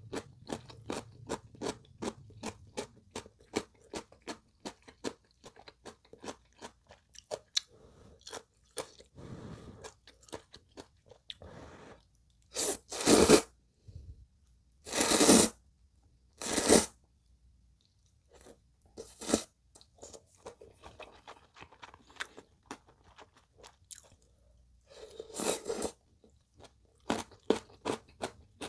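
Close-miked chewing of chonggak radish kimchi: a fast run of crisp crunches, about three or four a second. Around the middle come three loud slurps of ramen noodles, then more chewing and crunching toward the end.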